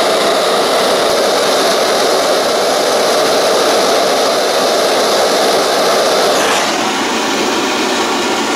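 Sievert propane gas torch with a standard burner burning steadily into a thermalite-block gas forge, a loud even rush of flame heating the forge to red heat to anneal a cold chisel. About six and a half seconds in, the rush turns slightly duller and quieter.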